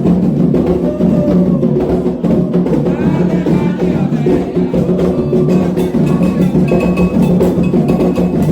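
Candomblé atabaque drums playing a fast, steady rhythm, with a metal bell (agogô) struck over them, ringing out more clearly in the second half, and voices chanting in places.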